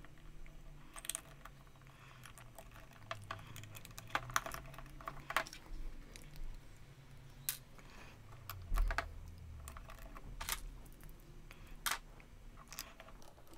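Plastic LEGO bricks clicking as they are handled and pressed together, in a faint, irregular run of small sharp clicks, with one duller, louder knock about nine seconds in.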